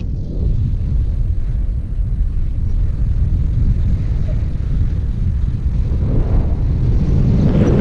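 Wind rushing over an action camera's microphone in paraglider flight: a steady low rumble that grows stronger and brighter in gusts near the end.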